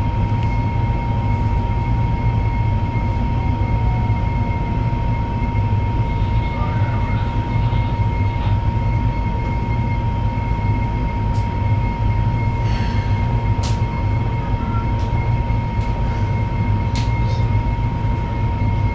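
Steady low hum inside the cabin of a CRH380B high-speed train standing at a platform, with a constant thin whine over it. A few faint clicks come in the second half.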